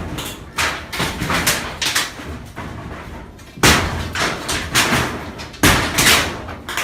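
Irregular knocks and bangs of hammering and building work, with several heavier blows, the loudest about three and a half seconds in and two more near the end.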